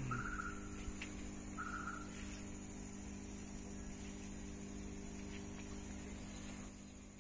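Steady hum of a running motor, made of several even tones, with two short chirps in the first two seconds.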